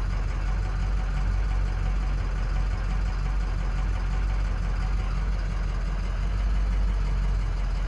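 Ford 6.0 Power Stroke V8 turbodiesel idling steadily. It is misfiring on cylinder 5, which is set as a fault code and shows the lowest contribution; the title puts it down to no compression in that cylinder.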